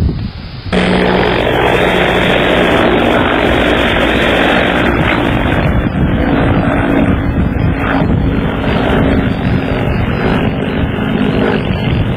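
Helicopter flying overhead, its engine and rotor making a steady, loud noise with a low hum. The sound starts suddenly about a second in.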